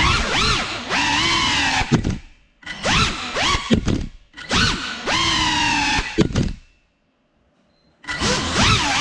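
Ducted 3.5-inch FPV cinewhoop drone's motors whining, the pitch rising and falling in quick swoops with the throttle, with a few sharp knocks. The motors cut to near silence for about a second near the end, then spool back up.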